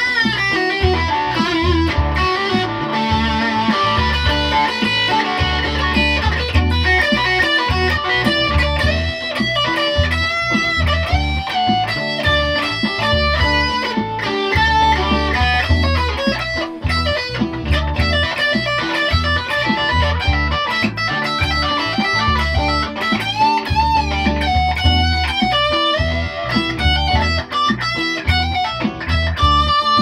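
Electric guitar played through an amplifier: a continuous riff of repeated low notes under melodic lines higher up.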